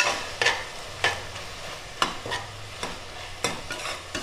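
Metal spatula scraping and knocking against the inside of a metal pressure cooker while stirring goat liver frying in oil and masala, in irregular strokes about every half second, over a light sizzle.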